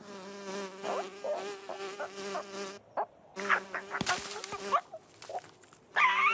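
Cartoon bee buzzing steadily, breaking off about three seconds in and starting again, with a few short knocks along the way. Near the end the cartoon bird lets out a short, loud, wavering cry.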